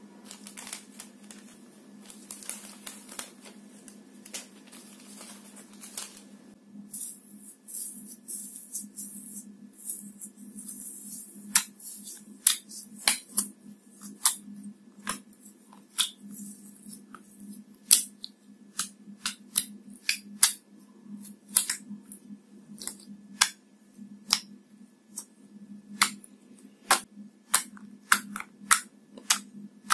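Clear slime being kneaded by hand with rose-gold foil: a soft rustle and crackle of the foil for the first several seconds, then, from about halfway on, a run of sharp, irregular clicks and pops from the slime. A low steady hum runs underneath.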